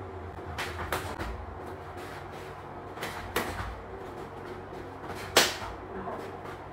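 Sharp slaps and smacks of hands and forearms striking and blocking in close-range Wing Chun sparring, about five separate impacts with the loudest about five seconds in.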